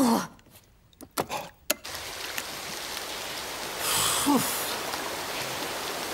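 Shower spraying water in a steady hiss, coming on abruptly about two seconds in after a few short, separate sounds, with a brief surge of spray about halfway through.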